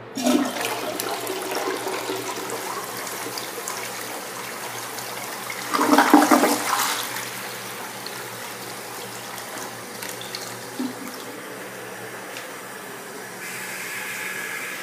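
2004 Crane Plumbing Atlas toilet flushing: the flush starts suddenly, surges loudest about six seconds in, then settles into a steadier rush of water as the bowl refills. A higher hiss joins near the end.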